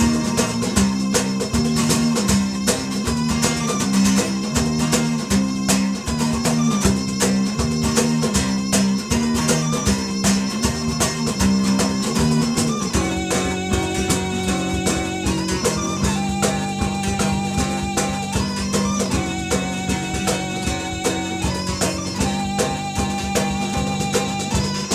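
Live acoustic band playing an instrumental passage of a folk-pop song: guitar over a steady beat. About halfway through, a higher wavering melody line comes in over it.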